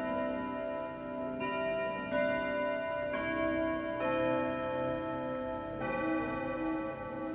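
Junghans wall clock with a W64 movement and six gong rods, ringing as its hands stand at six o'clock: notes of different pitch struck one after another at uneven intervals, each ringing on under the next.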